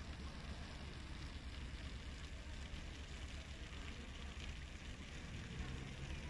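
Steady outdoor ambience of a large city square heard from a distance: an even hiss with a strong low rumble and no distinct events.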